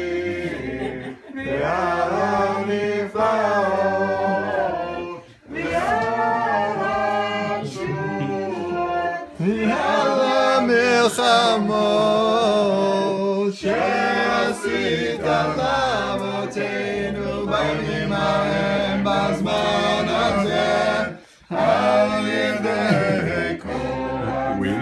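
A group of family voices singing a Hanukkah song together, unaccompanied, with a couple of short pauses between phrases.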